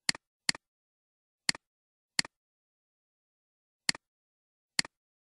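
Computer mouse clicking: six short, sharp clicks at uneven intervals, each a quick press-and-release.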